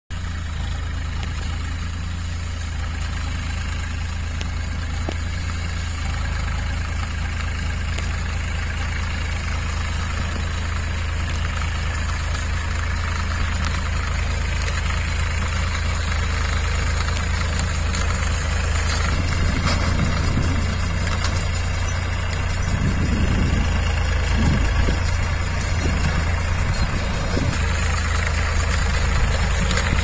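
Massey Ferguson 7250 DI tractor's three-cylinder diesel engine running steadily, driving a round straw baler as it picks up paddy straw, with the baler's machinery adding a steady mechanical rattle. The sound grows slightly louder and more uneven in the second half.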